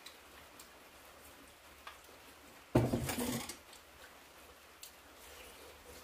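Tableware while eating: a few faint clicks of spoon and chopsticks on bowls, and about three seconds in a brief, loud clatter of a spoon and bowl.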